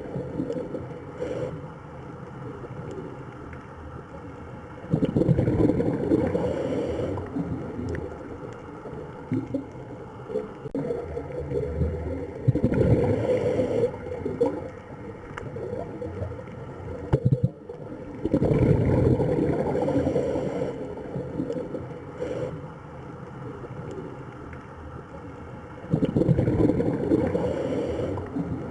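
Water sloshing and gurgling, rising in a louder surge about every six to seven seconds and easing off between.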